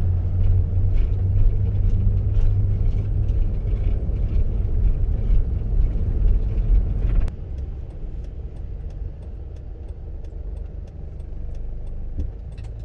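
Mercedes Sprinter van driving, heard from inside the cab: a steady low road and engine rumble that drops suddenly to a quieter level about seven seconds in, with faint clicks and rattles after that.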